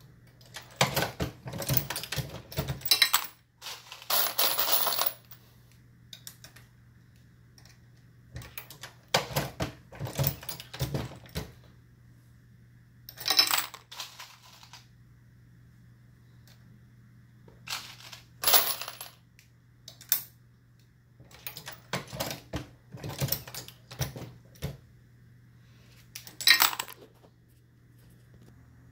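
Dillon RL550B progressive reloading press being worked by hand while loading .223 rounds: clusters of metal clanks and clicks from the press, with brass cases clinking, coming every few seconds and including a longer rattle about four seconds in.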